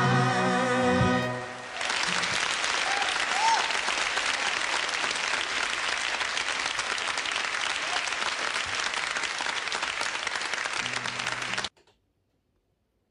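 The final held note of a live pop song dies away, then a concert audience applauds and cheers. The applause cuts off suddenly near the end.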